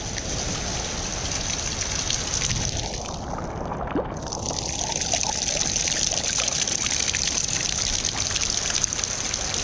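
Rain falling steadily, splashing into a plastic drum filled to the brim with rainwater, with a dense patter of drops.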